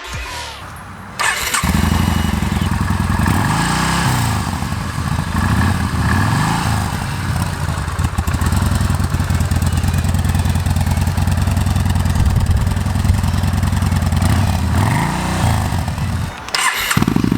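2015 Yamaha Bolt's air-cooled V-twin with an aftermarket exhaust, starting about a second in and running at idle, with three short blips of the throttle. It briefly drops out near the end, then runs again.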